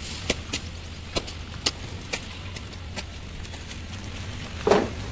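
Building-site work noise: scattered sharp clicks and knocks over a low steady hum, with one louder thump near the end.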